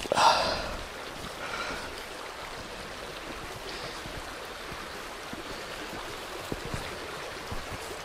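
A small river flowing steadily, a constant rushing. Right at the start there is a brief, louder breathy sound.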